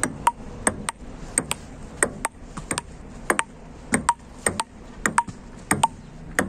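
Table tennis rally: the ball clicking off the paddles and bouncing on the table, a quick pair of ticks about every two-thirds of a second, many of them with a short ping.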